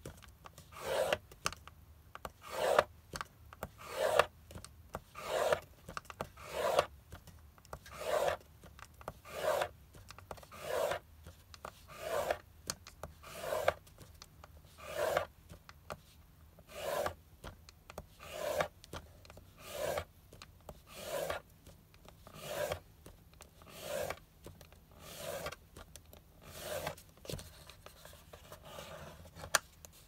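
A hand-held scoring tool rubbed back and forth over cardstock on a grooved scoring board, pressing it into the grooves row by row to crimp out the crumples. The result is a rhythmic scratchy scraping of about one stroke every 0.7 s, louder and softer strokes taking turns, growing fainter near the end.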